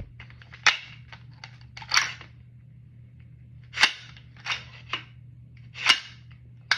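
An unloaded AR-style pistol being handled after clearing: a string of about seven sharp metallic clacks and clicks at uneven intervals, from its action, trigger and safety selector being worked.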